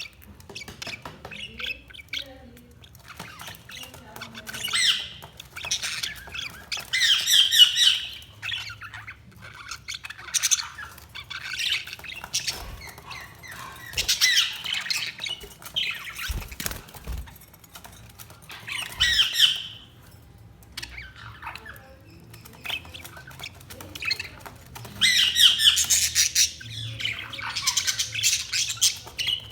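Budgerigars chattering and squawking in bursts of warbling calls every few seconds, with softer chirps between them.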